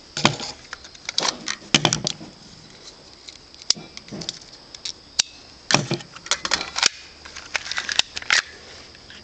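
Irregular sharp clicks and rattling knocks, about a dozen, from an airsoft pistol being handled and cocked.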